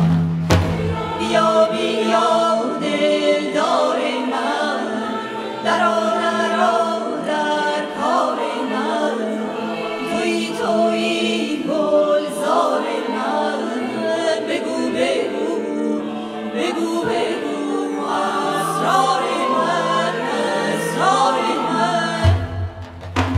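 Mixed choir singing a Persian choral song in many parts over sustained low notes. Near the end, low frame-drum strokes on the daf come in.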